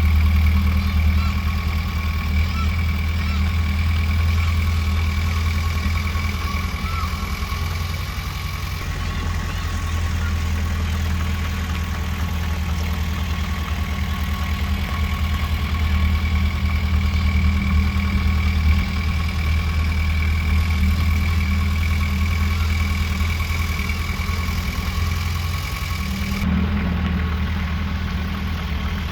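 Diesel engine of heavy earthmoving machinery running steadily, with a strong low hum and a thin, steady high whine above it.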